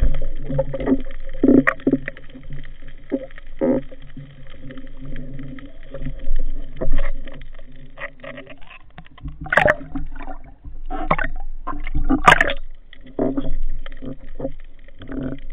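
Underwater sound through a camera housing on a speargun: muffled water movement and a steady low hum, broken by irregular knocks and clunks. The loudest come about seven and twelve seconds in.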